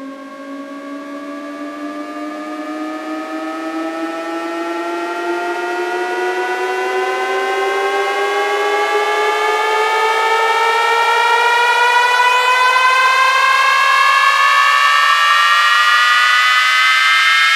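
Electronic synth riser in a DJ remix intro: several layered tones glide slowly upward in pitch together while growing steadily louder, building tension before the drop.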